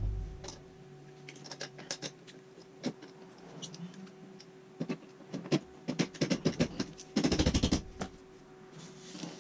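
Scattered light clicks and knocks of small parts and tools being handled, with a quick run of about a dozen clicks a little past halfway, over a faint steady hum.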